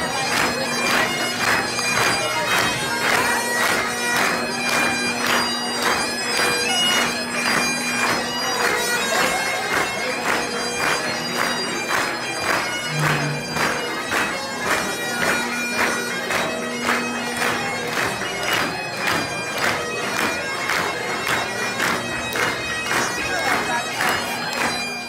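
Highland bagpipes playing a tune over a steady drone, with the audience clapping along in time. The piping cuts off at the end.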